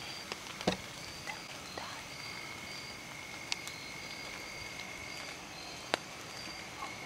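Night insects calling: a steady high trill that sets in about two seconds in and keeps going, over short repeated chirps. A few sharp clicks sound, the loudest just under a second in.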